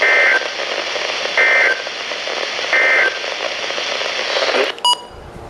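Three short bursts of warbling EAS/SAME digital data tones from a weather radio, about a second and a half apart: the end-of-message code that closes the alert. Radio static hiss runs under them and cuts off suddenly with a click near the end.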